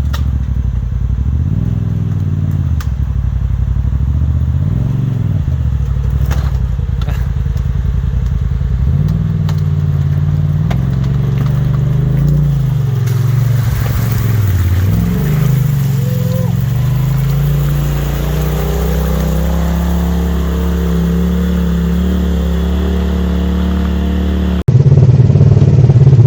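Polaris side-by-side UTV engine running while driving on a trail, its pitch rising and falling with the throttle through the first half and then steadier. About a second and a half before the end it cuts abruptly to a louder engine sound.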